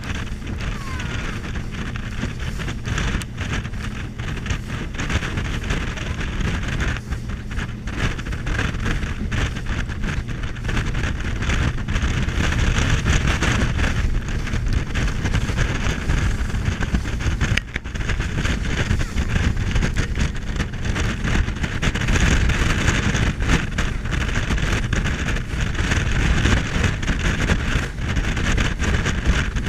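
Wind rushing over the microphone of a RIB boat under way at speed, over the drone of the boat's engine and water rushing against the hull. It gets a little louder about twelve seconds in.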